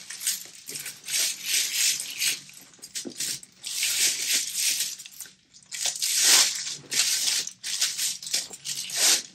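Thin gold metal chain handbag strap jingling and rattling as it is handled, in a series of bursts with a short pause about halfway through.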